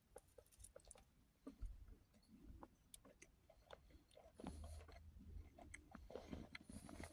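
Faint chewing and small mouth clicks close to the microphone, with a few soft, slightly louder bouts of chewing scattered through.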